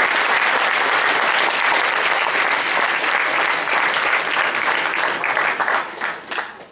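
Audience applauding in a hall: dense, sustained clapping that thins out to a few scattered claps near the end and then stops.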